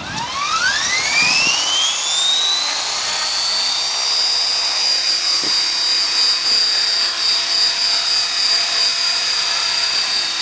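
Electric Belt-CP RC helicopter with wooden main blades spooling up: the motor and rotor whine rises steeply in pitch over the first few seconds as it lifts off, then holds a steady high whine while it hovers.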